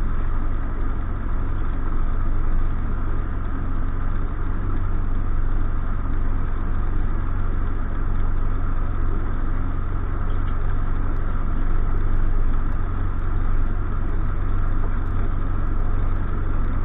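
Single-engine light aircraft's piston engine idling, heard from inside the cockpit as a steady deep drone.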